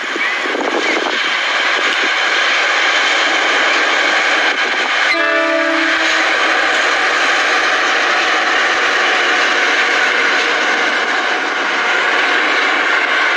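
CC 206 diesel-electric locomotive running close by with a loud, steady noise. About five seconds in, its Nathan Airchime K1L single-chime horn gives one short blast of about a second.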